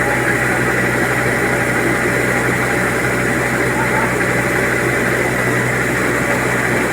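Engine of a rice harvesting machine running steadily at an even speed.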